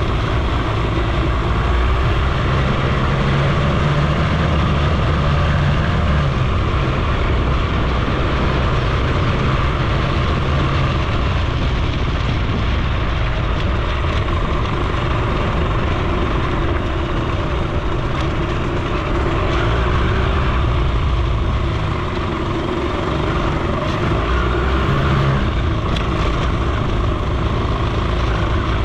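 Suzuki FZ50 moped's 49 cc two-stroke single-cylinder engine running steadily while riding along a dirt road, its note shifting slightly a few times, mixed with wind and road noise.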